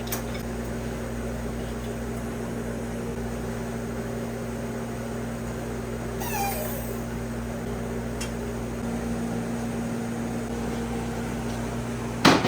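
A single short animal call falling in pitch, about halfway through, over a steady mechanical hum. A sharp click comes near the end.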